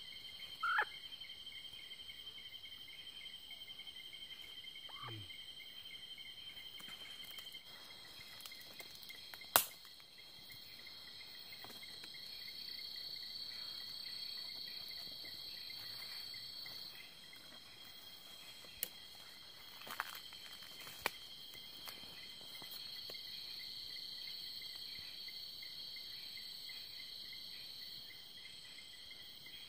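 Night insects chirring steadily at several high pitches, one of them a fast pulsing trill. A single sharp click about a third of the way in is the loudest sound, and a few fainter clicks come later.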